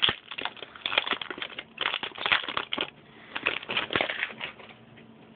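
Foil-lined wrapper of a Magic: The Gathering booster pack being torn open and crumpled, a rapid run of crinkling crackles that dies away near the end.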